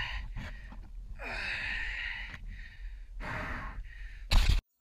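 A mountain biker breathing hard, with three long, heavy exhalations over a steady low wind rumble on the microphone. A loud short burst near the end cuts off suddenly.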